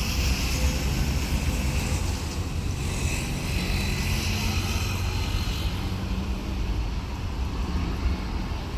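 Diesel engine of a heavy railway track-maintenance vehicle running steadily, its sound mostly low-pitched.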